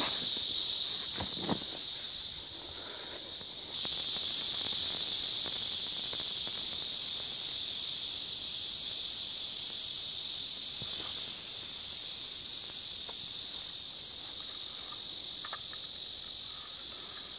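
Steady, shrill chorus of summer insects, a high hiss that steps up louder about four seconds in. A few faint knocks sound under it.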